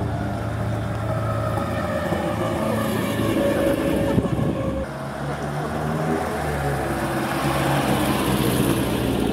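Veteran cars driving slowly past one after another, engines running. A red BMW E30 goes by in the first few seconds, then a black GAZ-21 Volga passes close by near the end.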